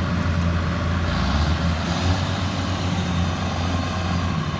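Kubota DC-105X rice combine harvester's diesel engine running steadily under load while cutting, a constant low drone with a broad rushing noise over it.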